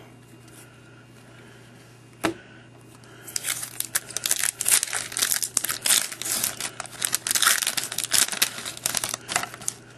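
A baseball card pack's wrapper being torn open and crinkled by hand, starting about three seconds in and going on until near the end, after a single sharp tap a little past two seconds.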